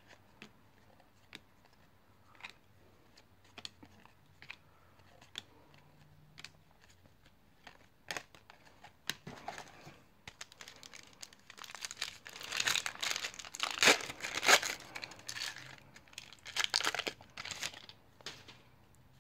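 Trading cards slid and flicked through by hand with small scattered clicks, then a 1993 Upper Deck foil card-pack wrapper crinkling and tearing open for several seconds, loudest about halfway through.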